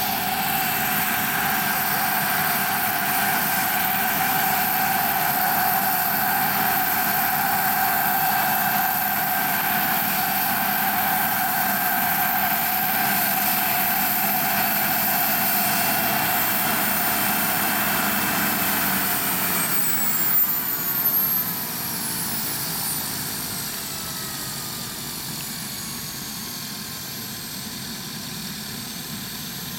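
JetCat PHT3 turboshaft turbine of a 1:4 scale Vario EC145 RC helicopter running steadily with its rotor turning. About two-thirds of the way in, the whine glides down in pitch and fades as the turbine spools down after landing, with a couple of short louder bursts just as it starts to fall.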